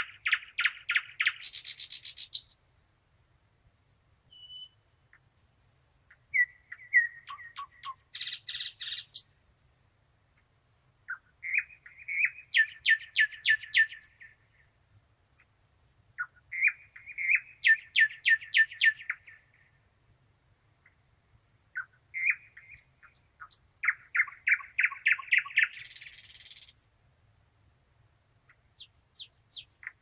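Thrush nightingale singing: five phrases of rapid repeated notes and rattles, each two to three seconds long, with short pauses between them.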